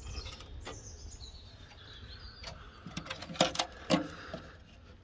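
A bird calling in the background over a low rumble, with several sharp clicks and knocks in the second half.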